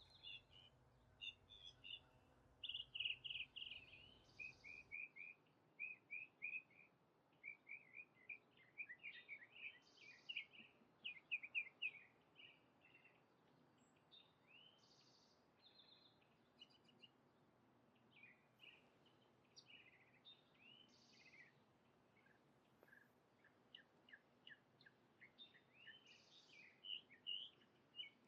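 Birds calling: faint, high chirps coming in quick runs of short notes and single arching calls, scattered across the stretch with short pauses between.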